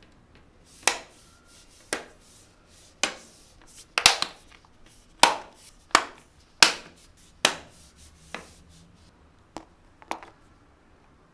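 About a dozen sharp clicks and knocks, irregularly spaced roughly a second apart, from hands working on a laptop's casing and parts during a fan replacement.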